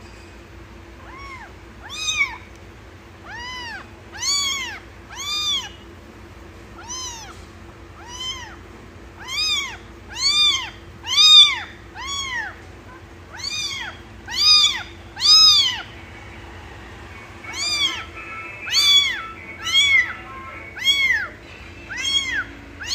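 Young kitten meowing over and over, about one high-pitched call a second, each call rising and then falling in pitch.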